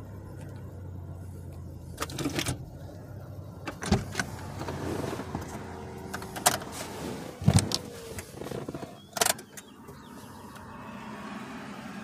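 Chevy Cobalt's 2.2 L Ecotec four-cylinder engine idling with a steady low hum, then switched off about four seconds in. Several sharp clicks and knocks follow in the car's cabin.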